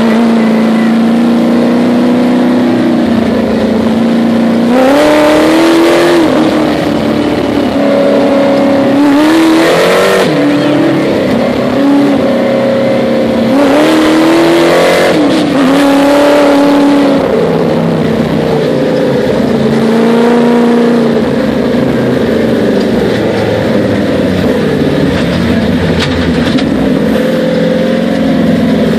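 Supercharged LS3 6.2-litre V8 of a sandrail under way on sand, heard on board. It revs up hard three times, about five, nine and fourteen seconds in, each time dropping back to steadier running, with a rush of noise at each surge.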